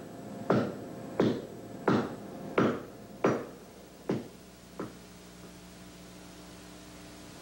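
Regular knocking strikes, about three every two seconds, each sharp and briefly ringing, which weaken and stop about five seconds in, leaving a low steady hum.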